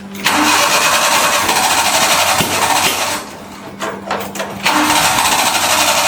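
Suzuki mini truck engine being cranked on the starter without catching, in two tries: about three seconds of cranking, a pause of about a second and a half, then cranking again.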